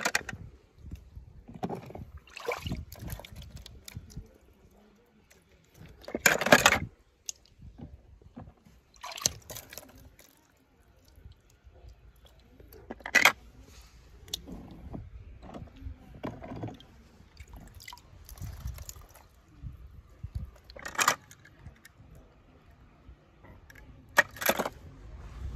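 Water sloshing and splashing in irregular spurts as toy cars are moved about in it, with a handful of sharp splashes or knocks, loudest about six and a half and thirteen seconds in.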